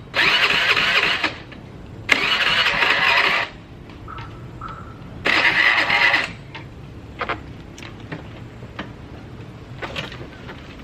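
Motor scooter's electric starter cranking in three bursts of about a second each, with pauses between; the engine does not catch. The scooter won't start.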